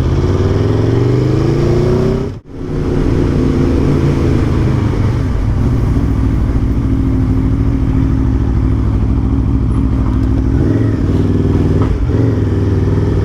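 Aprilia Tuono V4 1100 Factory's V4 engine pulling away, its pitch rising for about two seconds. The sound breaks off briefly, then the engine runs on at a steady cruising pitch.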